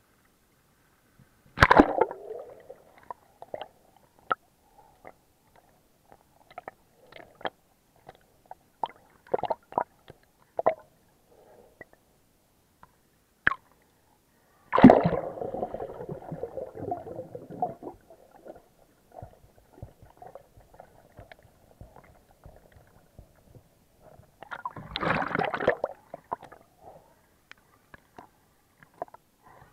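Muffled underwater sloshing and gurgling picked up by a camera held under the surface during a snorkel swim, with scattered small clicks. There are louder rushes of water: a sharp one about two seconds in, a longer one near the middle and another near the end.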